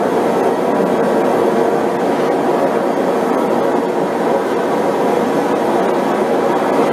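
Propane forge burner running: a loud, steady rush of gas and flame that does not change.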